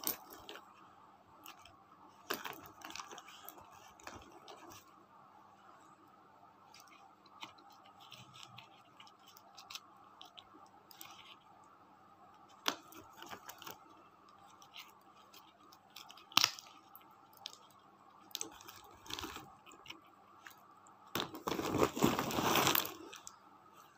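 Chunks of roasted edible clay knocking together and a woven plastic sack rustling as gloved hands handle the lumps: scattered sharp clicks now and then, then a louder burst of rustling and clattering near the end as a hand digs into the sack.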